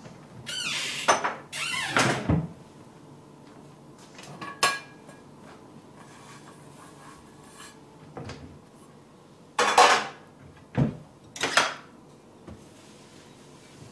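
Crockery handled while dishes are dried by hand: plates knocked and set down, with a few short clinks. Near the start come two longer scraping or squeaking sounds, each under a second.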